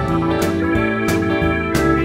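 Background instrumental music: held guitar notes over a steady beat.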